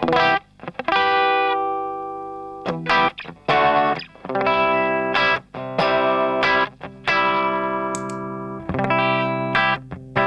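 Electric guitar played through a TS808 Tube Screamer clone overdrive pedal: distorted chords struck and left to ring out, some choked short, with a few quick strums in between.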